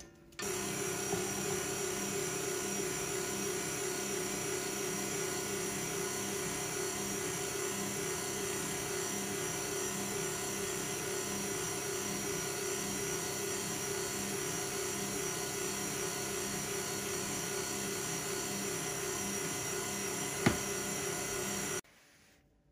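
KitchenAid stand mixer running with its wire whisk beating cream-cheese batter in a steel bowl: a steady motor hum that starts about half a second in and cuts off abruptly near the end. One sharp click comes shortly before it stops.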